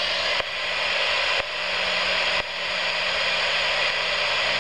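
Weather radio receiver hissing with static over dead air, with a steady low hum under it. The hiss dips sharply about once a second and swells back.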